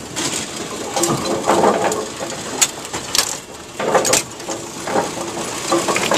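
Brunswick A2 bowling pinsetter running through a second-ball cycle: steady machine noise with sharp metallic clicks and clacks, the loudest a few seconds in.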